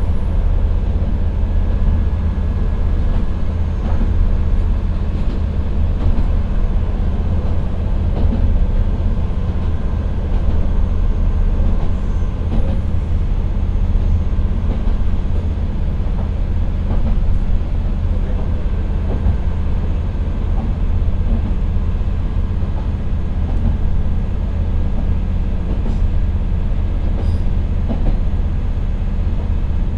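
Inside a diesel railcar climbing a grade at about 40 km/h: the Nissan Diesel PE6HT03 six-cylinder diesel engine pulls under load with a steady, deep drone, mixed with the train's running noise.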